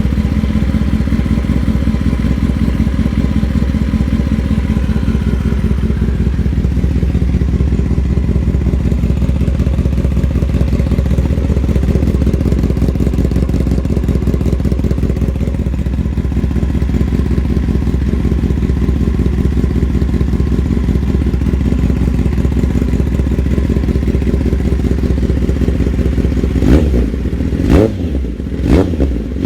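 2021 Kawasaki ZX-10R's inline-four idling steadily through an M4 aftermarket exhaust. Near the end the throttle is blipped a few times in quick, sharp revs.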